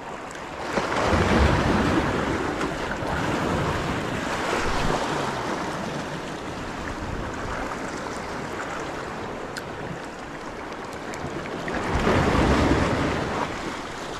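Small waves washing against a rocky shore, with wind buffeting the microphone. The wind gusts up about a second in and again near the end.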